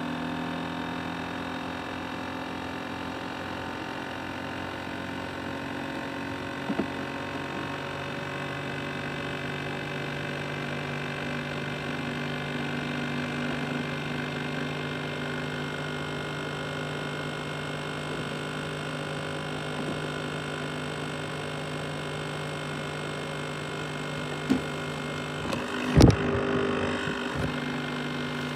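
Laptop CPU fan running with a steady hum of several tones that creep slightly higher at first. A faint click comes about seven seconds in and a sharp knock near the end.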